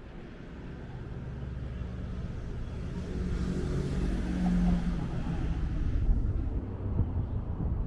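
A motor vehicle passing: a low engine rumble and tyre noise swell to a peak about four to five seconds in, then ease off.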